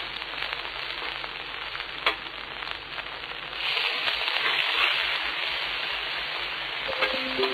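Sizzling of food frying, a steady crackling hiss that grows louder about three and a half seconds in, with one sharp click about two seconds in. Music notes come in near the end.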